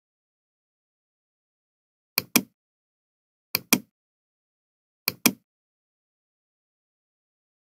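Three computer mouse clicks about a second and a half apart, each a sharp press-and-release double snap, with dead silence between.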